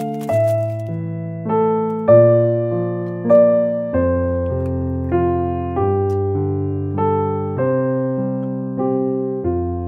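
Background keyboard music, a mellow piano-like melody over chords, with the notes changing about every half second.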